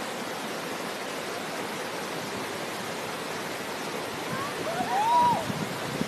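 River rapids below a weir, a steady rush of white water. About five seconds in, a voice calls out briefly above it.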